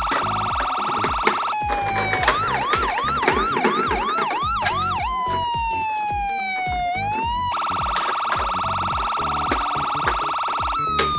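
Electronic siren of a toy ambulance miniature car cycling through its patterns. It starts with a fast warble, then a slow falling wail, then quick rising yelps about three a second, then a wail that dips and rises before the fast warble returns.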